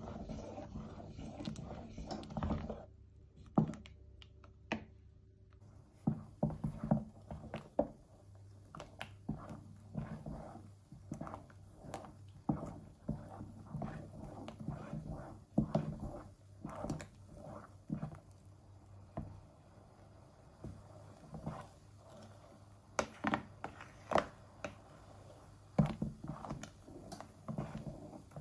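A wooden spoon stirring melting butter in an aluminium pot, knocking and scraping irregularly against the pot, over a low steady hum.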